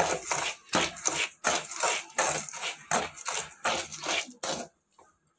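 Chickpeas and coarse salt scraped and tossed around a metal kadai with a scoop, a gritty rattling scrape in rhythmic strokes about two or three a second, stopping shortly before the end. The chickpeas are being dry-roasted in hot salt.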